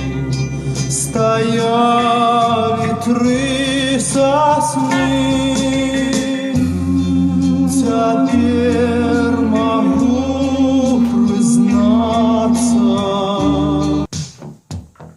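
A song with singing over a held bass line, played through the loudspeaker of a Belarus-57 valve radio. About 14 seconds in it cuts off suddenly and a sparse electronic drum beat begins.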